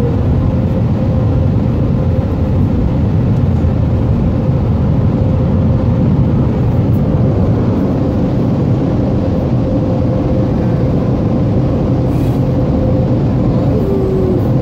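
Automatic brush car wash working over the car, heard from inside the cabin: a steady, loud rush of water spray and machinery on the body, with a steady hum.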